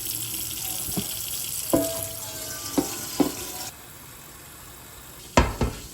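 Water running in a kitchen, cutting off abruptly about two-thirds of the way in, with several light clinks and knocks of pots and utensils, some ringing briefly.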